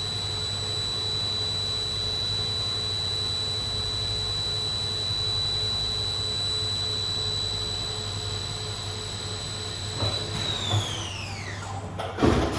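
Chevalier QP2040-L vertical machining centre's spindle running at 6000 RPM with a steady high whine over a low hum, cutting air in a dry-run pocketing cycle. About ten seconds in the whine falls away as the spindle slows down, followed by a few clunks near the end.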